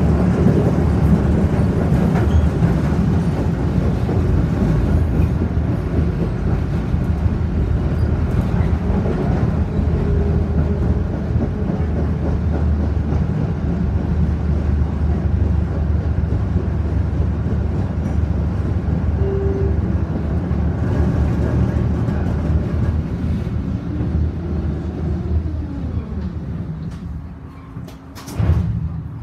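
Konstal 114Na tram running along the track, heard from inside the car: a steady low rumble of wheels and running gear. Over the last few seconds a whine falls in pitch and the rumble fades as the tram brakes into a stop, with a short knock near the end.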